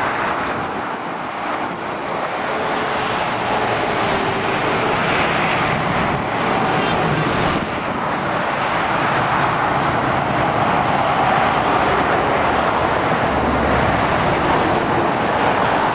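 Heavy-lorry traffic on a motorway: diesel truck engines and tyre noise passing steadily and continuously. A deeper engine rumble swells in near the end as a truck comes close.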